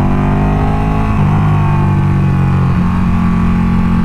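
Sportbike engine running hard at speed, its note shifting pitch about a second in and again near three seconds, under steady wind noise.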